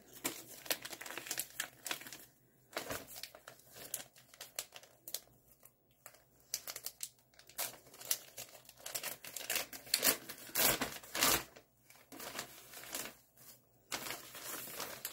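Gift-wrapping paper crinkling and tearing as a small wrapped present is unwrapped by hand, in irregular rustles with a louder stretch about ten seconds in.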